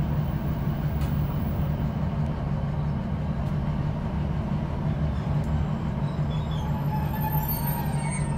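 Inside a British Rail Class 156 Super Sprinter diesel multiple unit on the move: the steady low drone of its six-cylinder Cummins diesel engine and running gear. Faint high-pitched squeals come in near the end.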